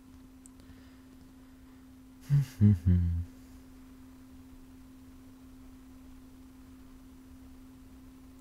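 A steady low hum, with three short, low voice sounds from a person a little over two seconds in.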